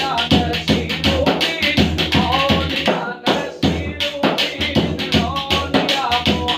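Music led by daff frame-drum playing: fast, dense strokes over a low steady drone and a bending melodic line. The drumming breaks off briefly about halfway, then picks up again.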